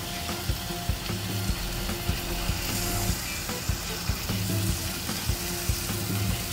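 Mutton pieces sizzling in a hot stainless steel pot as thick rogan josh curry sauce is poured over them. Background music with a steady beat plays along.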